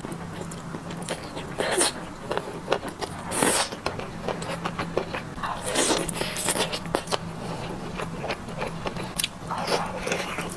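Close-up eating sounds: spicy noodles slurped, then meat bitten and torn off a bone and chewed, in irregular wet bites and chews.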